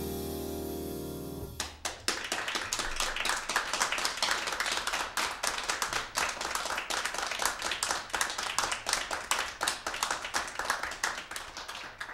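The last chord of a jazz piano and double bass performance ringing out and fading, then, about a second and a half in, audience applause starting and carrying on, tailing off near the end.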